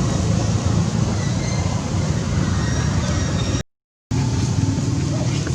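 Steady outdoor background rumble and hiss with no clear single source, broken by a half-second dropout to silence about two-thirds of the way through.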